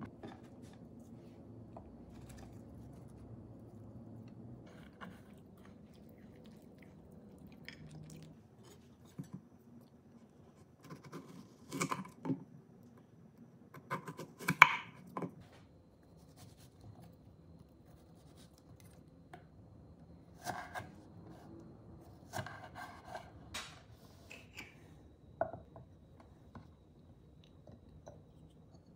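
Chef's knife cutting an apple on a wooden cutting board: scattered knocks of the blade striking the board, the loudest cluster about halfway through, with a few lighter clicks near the end as slices are set into a ceramic dish.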